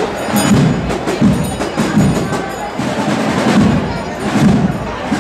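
Marching band playing a procession march, its drums beating steadily about once every 0.8 seconds with sharp percussion ticks on top.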